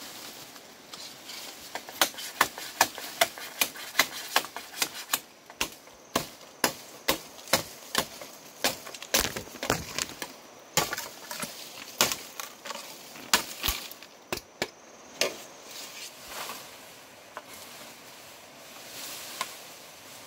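A machete chopping into bamboo stems: a quick run of sharp chops, about two to three a second, starting about two seconds in and thinning out after about fifteen seconds.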